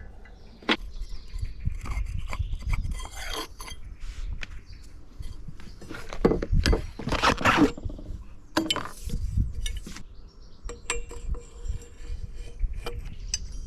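Irregular metallic clinks and knocks with scraping in between, from hand tools and bicycle parts being worked on.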